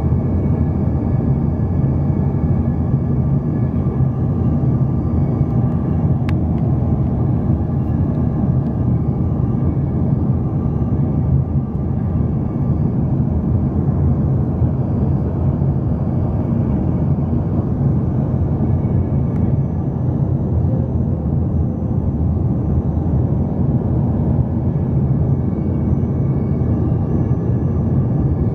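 Steady cabin noise inside an Embraer 145 regional jet on approach with flaps extended: a low rumble of airflow and the rear-mounted Rolls-Royce AE3007 turbofans, with faint steady high tones above it.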